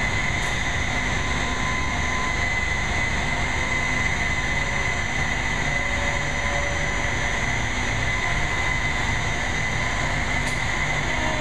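Steady heavy machinery noise: a constant low rumble with a steady high whine that does not change.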